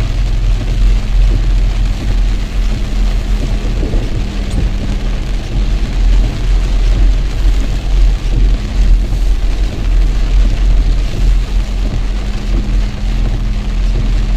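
Steady low rumble and hum of a Toyota car's engine and tyres, heard from inside the cabin as it drives through floodwater, with heavy rain falling on the car.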